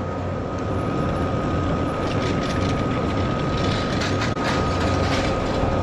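Chairlift machinery running without stopping: a steady low hum and whine with a fast, continuous clatter of the haul cable and chairs passing over the station sheaves.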